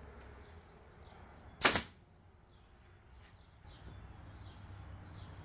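Pneumatic nail gun firing once about one and a half seconds in, a sharp air-driven shot driving a nail into a plywood patch, followed by a few faint clicks.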